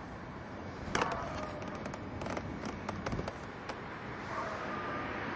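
Scattered sharp clicks and taps of the plastic toys on a baby walker's tray as a baby fiddles with them, over a faint steady hiss.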